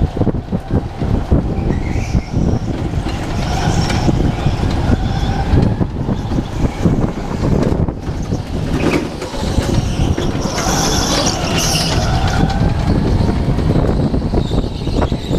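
Onboard sound of a go-kart driven at speed around an indoor track: a steady low rumble of the running kart with a faint wavering whine, and a brief high squeal about ten seconds in.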